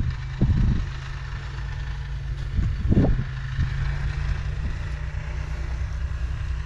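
A snowmobile engine idling steadily with a low hum, with a couple of short knocks about half a second and three seconds in as the fishing line and hooks are handled.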